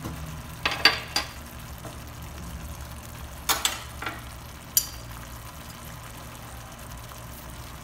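Thick tomato sauce simmering in a frying pan, bubbling with a faint hiss and a few sharp pops as bubbles burst, over a steady low hum.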